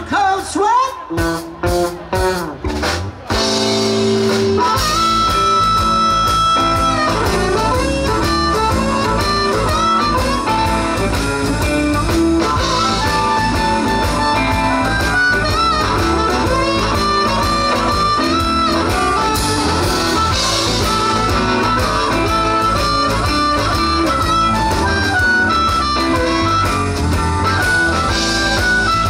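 Live blues band: electric guitars and drums with an amplified harmonica. The first few seconds are choppy stop-start hits after a sung line, and from about four seconds in the band plays steadily under long held harmonica notes.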